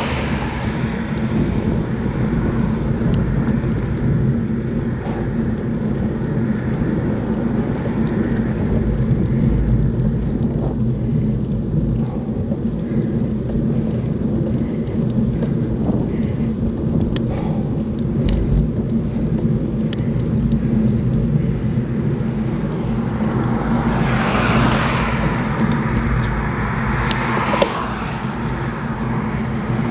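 Steady low rumble of wind and road noise from a road bicycle being ridden along a main road. A motor vehicle passes close by about three-quarters of the way through.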